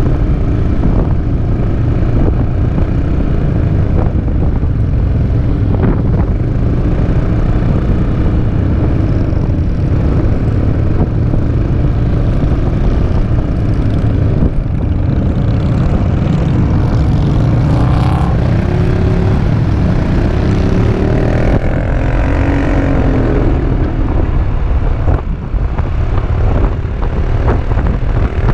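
Wind rushing over an action camera's microphone on a moving Peugeot Métropolis three-wheeled scooter, with the scooter's engine running steadily underneath. Engine notes rise and fall a couple of times about two-thirds of the way through.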